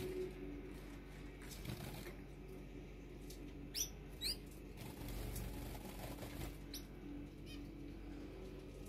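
Caged finches: two quick upward-sweeping chirps about four seconds in and a fainter one near seven seconds, with wing flutters and a low steady hum underneath.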